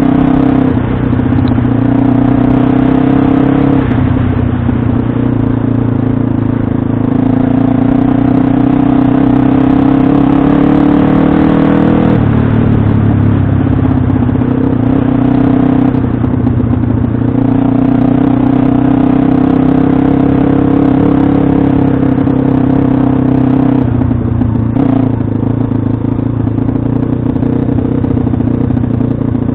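Pit bike's single-cylinder engine running hard while being ridden. Its pitch climbs slowly and drops sharply about twelve seconds in, with a few shorter dips as the throttle is eased.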